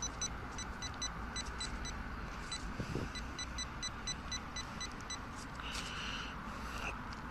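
Rapid short electronic beeps from metal-detecting gear, about four or five a second, stopping about five seconds in. A longer beep sounds near six seconds and a short one just before the end.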